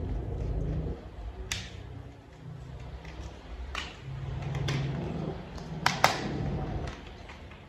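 Plastic toy vehicle parts being handled and fitted together: a few sharp clicks and snaps, a double one about six seconds in the loudest, over low rustling handling noise.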